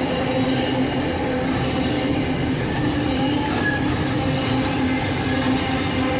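A freight train's wagons rolling steadily past on the track, a continuous mix of rolling noise and several steady tones.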